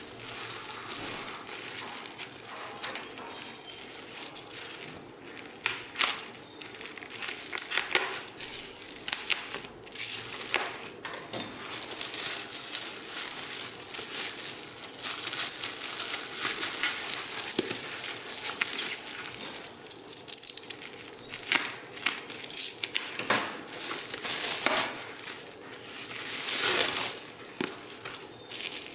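Plastic bubble wrap being handled and pulled open around a cardboard box: continuous crinkling with many irregular sharp clicks and crackles.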